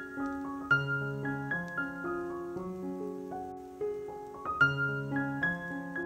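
Background piano music, a gentle flow of struck notes over held lower notes.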